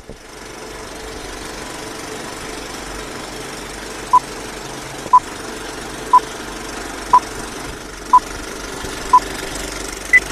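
Old-film countdown leader sound effect: the steady clatter of a film projector, with short beeps once a second from about four seconds in, six at one pitch and then a last, higher beep near the end. The beeps are the loudest sounds.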